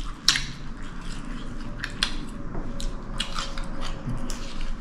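Eating at the table: chewing with scattered light clicks and clinks of cutlery and dishes.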